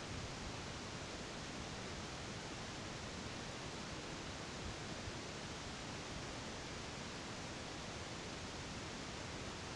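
Steady hiss of background noise with no distinct sounds standing out.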